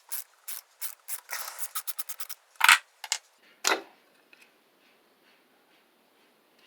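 Hand tools and metal parts being worked on a small engine during teardown: a run of short clicks and scrapes, then two louder knocks about a second apart, then only faint handling.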